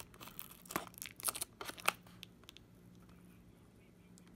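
Fingernails picking and scraping at a cardboard box's end flap: a few short, sharp scratchy clicks in the first two seconds, then only a faint steady hum.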